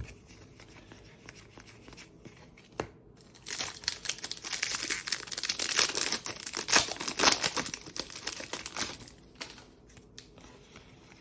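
A trading card pack's wrapper being torn open and crinkled: a quiet start with a single click, then a dense run of crackly tearing and crinkling from about three seconds in until about nine seconds in, fading after.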